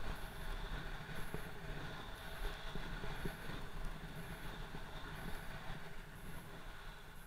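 Wind rushing over the camera's microphone with the steady hiss of a snowkite board sliding over snow, swelling in the middle and easing off near the end.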